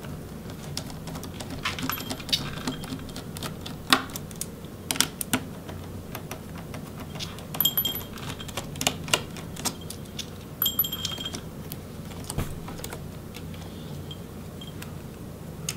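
Small screwdriver backing out the metal hinge screws of a laptop's chassis: scattered light clicks and ticks of the bit, screws and hands on the case, with a short metallic ring twice around the middle.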